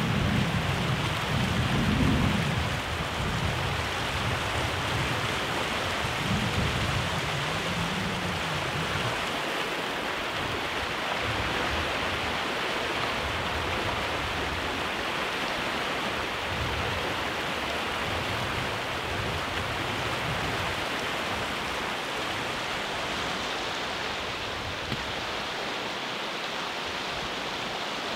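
Steady rushing of a flood-swollen creek, with low rumbling during the first eight seconds or so.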